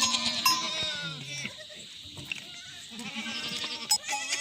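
Himalayan goats bleating, several voices overlapping, loudest at the start and again from about three seconds in.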